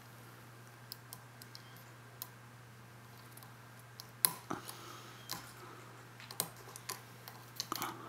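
Faint, scattered clicks of a steel pick probing and lifting the pins of an old Zeiss-Ikon brass pin-tumbler cabinet lock, picked pin by pin under tension. The sharpest click comes about four seconds in, with a few more near the end, over a steady low hum.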